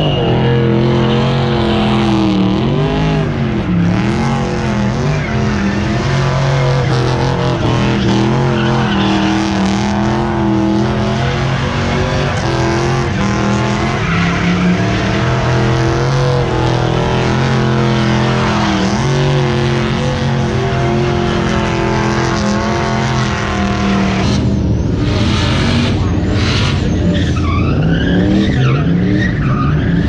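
A car doing burnout donuts: its engine held at high revs, the pitch wavering as the throttle works, over the hiss and squeal of spinning tyres. About two-thirds of the way through the engine note breaks off, and near the end the revs sweep up and down repeatedly.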